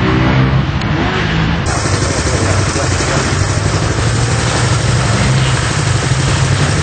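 Single-cylinder Supermono race motorcycle engine running steadily at idle, with voices around it.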